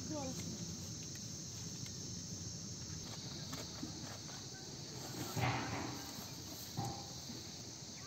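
Steady high-pitched chirring of crickets, with two soft knocks about five and a half and seven seconds in as apples are set into a cardboard box.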